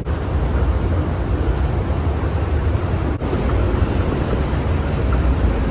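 Steady, loud rumbling noise with no distinct events, briefly broken about three seconds in.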